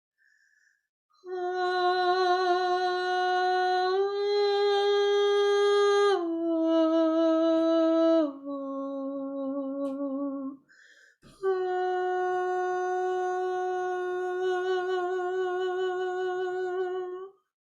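A woman's voice toning long, slow held notes with a slight waver. The first note steps up a little, then down twice. After a short pause and a click, one long note is held.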